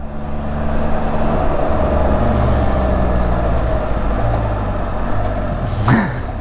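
Can-Am Spyder RT Limited's three-cylinder engine running steadily under way, with road noise. A short voice sound comes near the end.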